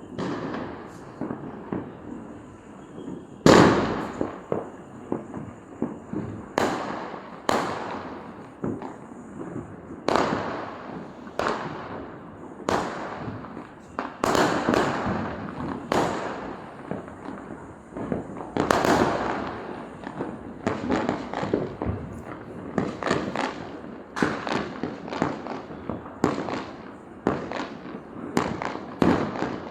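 Diwali firecrackers and fireworks going off one after another, sharp bangs near and far overlapping with a running crackle. The loudest bang comes about three and a half seconds in.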